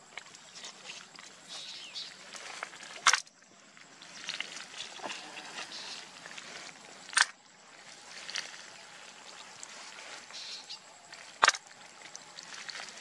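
Faint outdoor background noise with three sharp clicks or knocks, evenly spaced about four seconds apart.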